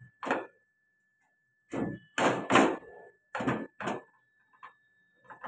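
Knife cutting into peeled potatoes over a metal plate: a string of short knocks and scrapes as the blade scores them and the potatoes bump against the plate, about six in a few seconds. A faint steady high whine runs underneath.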